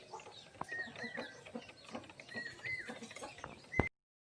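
Chickens clucking and chirping in short, arching calls, with a few sharp clicks among them. The sound cuts off abruptly just before the end, right after a louder click.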